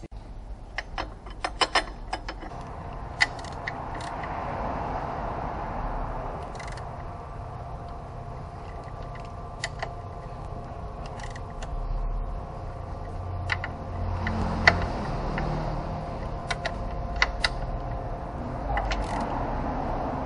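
Hand ratchet with a long socket extension turning bolts on a car's transaxle case, with ratchet clicking and scattered metal clinks of the socket and tools over a steady workshop hum.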